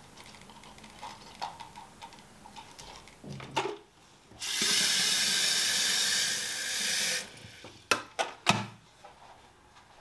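Kitchen tap running water into a glass electric kettle for about three seconds, a loud, even rush. Small clinks come before it, and a few sharp clicks follow about a second after the water stops.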